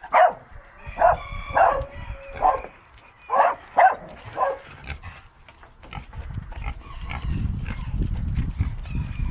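A pig giving about seven short grunting calls in the first five seconds, then low snuffling as it roots its snout in mud.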